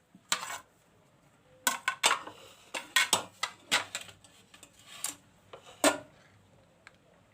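Kitchen utensils and dishes clinking and knocking: about a dozen irregular sharp strikes, loudest about two seconds in and again near six seconds, tailing off near the end.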